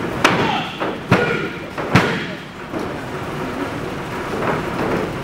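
A referee's hand slapping the wrestling-ring mat three times, just under a second apart, counting a pin. A steady noisy hum of the hall follows the count.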